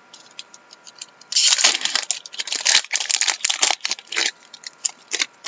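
A foil trading-card pack wrapper being torn open and crumpled by hand: light crinkles at first, then a loud stretch of tearing and crinkling from about a second and a half in until about four seconds, ending in a few small crackles.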